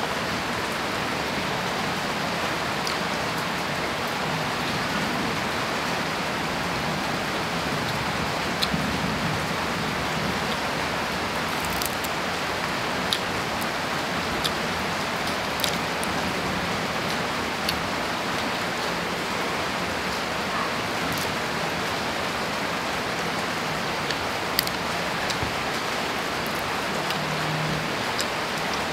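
Steady rain falling, an even hiss throughout, with a few sharp clicks over it.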